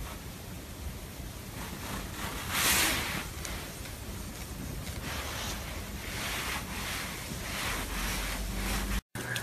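Rustling of a hand rubbing a cat's belly fur close to the microphone, in soft swells about twice a second, with one louder stroke about three seconds in. It cuts off abruptly near the end.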